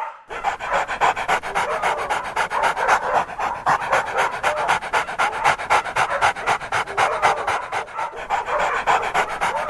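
A dog panting fast and evenly, about five or six short breaths a second.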